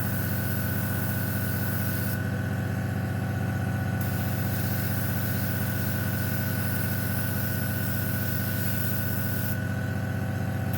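Small airbrush compressor running with a steady hum, while the airbrush hisses as paint is sprayed at about 20 psi. The hiss stops for a couple of seconds about two seconds in and again near the end as the trigger is released.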